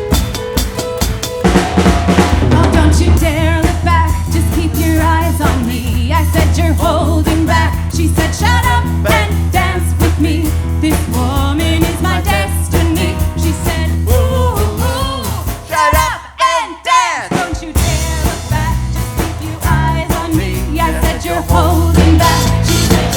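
Upbeat pop-rock song: a male voice sings over a steady drum kit and bass. Just past the middle, the bass and drums cut out for about a second while the voice carries on, then the full band comes back in.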